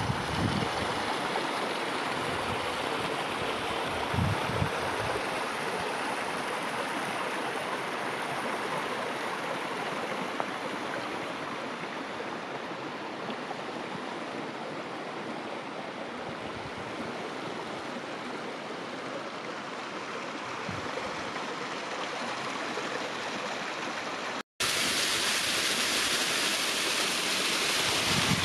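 Steady rushing of running water, with a few brief low buffets of wind on the microphone. About 24 seconds in it cuts out for a moment and comes back louder and brighter.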